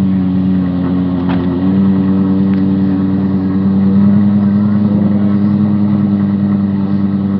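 Lexus LFA's 4.8-litre V10 idling steadily just after start-up.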